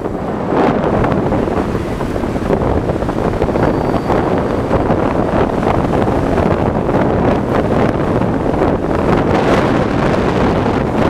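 Wind buffeting the microphone of a rider moving on an electric scooter, a dense rushing noise with road noise underneath; it gets louder about half a second in and then holds steady.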